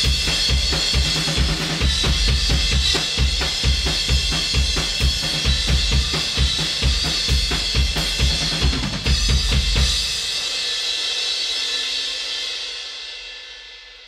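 Recorded rock drum kit playing back with the LA-2A compressor bypassed: kick, snare, hi-hat and cymbals in a steady beat. The kit stops about ten seconds in, and a cymbal rings out and fades away.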